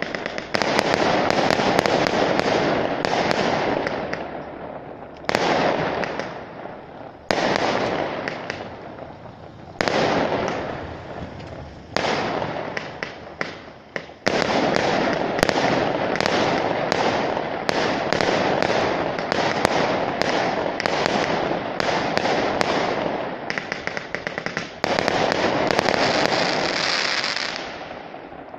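Fireworks display: aerial shells going off one after another, each sudden loud bang trailing off over a second or two. Sharp crackling pops come in between, in rapid volleys through the middle, and the display dies away near the end.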